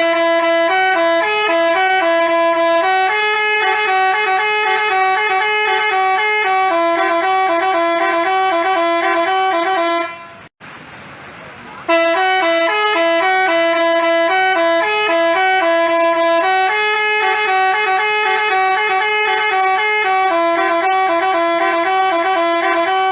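Basuri telolet horn playing a jingle of clear stepped horn notes, stopping about ten seconds in, then the same tune starting again a couple of seconds later.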